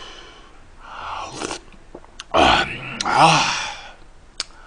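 A man slurping a spoonful of stew broth close to the microphone, then letting out a long, satisfied groan a couple of seconds later.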